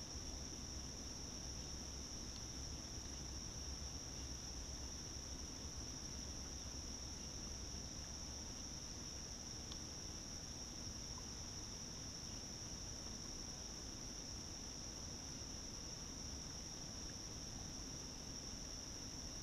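Steady, high-pitched chorus of insects, one unbroken drone, over a faint low rumble.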